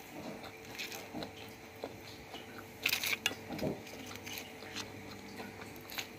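Quiet eating sounds: a kerupuk (fried cracker) crunching as it is broken and chewed, with a short cluster of crunches about three seconds in and scattered small crackles between.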